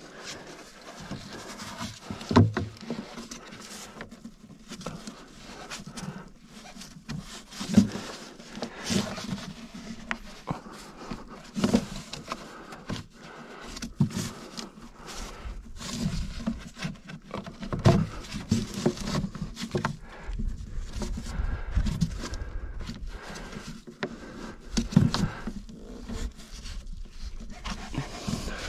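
Irregular knocks, taps and scraping as new air filter elements are handled and pushed into a tractor's air filter housing, with low rumbling in the second half.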